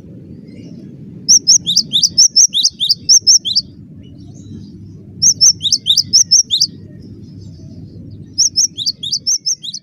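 Cinereous tit (gelatik batu) singing hard: three bursts of rapid, high, repeated notes, each a quick downward slur, with a steady low hum underneath.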